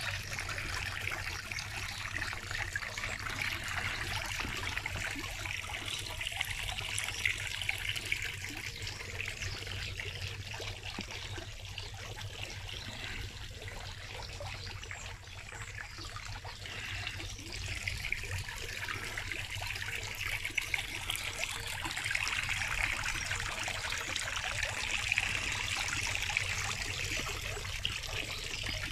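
Water trickling and splashing from a tiered stone garden fountain, fading somewhat in the middle and growing louder again near the end.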